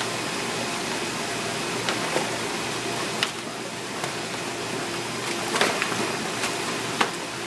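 Steady rush of moving water in a sea-turtle tank, with a few short splashes as a feeding loggerhead sea turtle thrashes at the surface by the tank wall.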